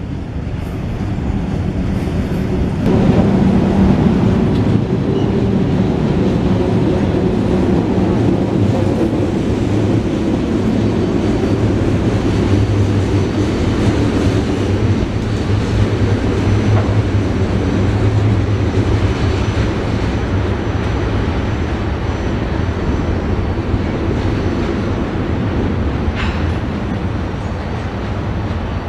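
Loaded freight train gondola cars carrying pipe rolling past: a continuous rumble of steel wheels on rail. It gets louder about three seconds in and eases off toward the end as the last cars move away.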